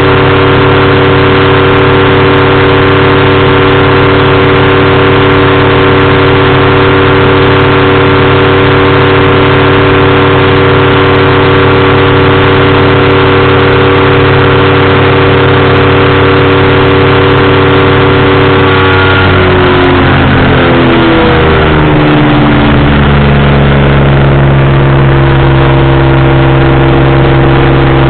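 Powered parachute's engine and propeller running loud and steady. About two-thirds of the way through, the revs drop over a few seconds, then the engine settles into a steady lower speed.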